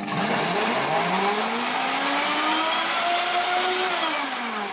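Countertop blender puréeing wild garlic leaves with an egg. The motor starts as soon as it is switched on, and its whine climbs steadily in pitch for about four seconds, then starts to fall near the end as it slows.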